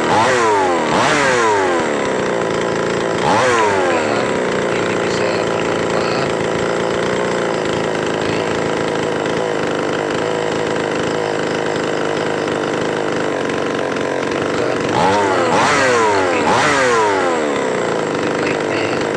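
Small two-stroke Falcon chainsaw engine running, revved up and dropping back a few times in the first four seconds, then running steadily, then revved several times again near the end. It is running normally again after a blocked intake hose between the carburetor and the engine was found to be why it would not run properly.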